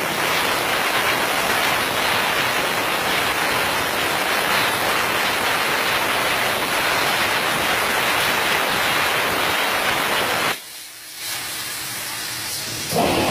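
CNC plasma cutter torch cutting sheet metal: a loud, steady hiss of the plasma arc. About ten and a half seconds in the arc stops and the sound drops to a quieter hiss, and the cut starts again with a loud hiss right at the end.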